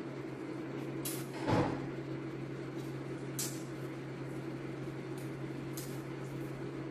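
Close-up eating sounds: a man chewing fried chicken, with a few short wet mouth clicks and smacks over a steady low hum, and one louder dull thump about one and a half seconds in.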